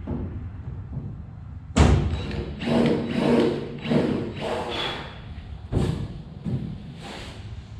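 A sharp thump about two seconds in, then a run of knocks and clattering and a few more thumps: hands and tools handled against the aluminium boat hull during drilling and riveting work.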